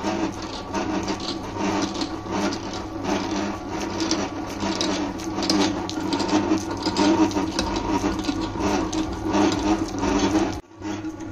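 Commercial stand mixer running, its motor humming steadily while the dough hook kneads doughnut dough, with irregular scraping and knocking as the dough rubs against the stainless steel bowl. The sound drops out for a moment near the end.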